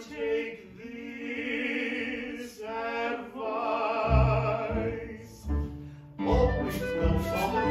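Men singing an operetta number in a theatrical style, holding two long notes with vibrato. Live instrumental accompaniment comes in under the second note and grows louder and busier near the end.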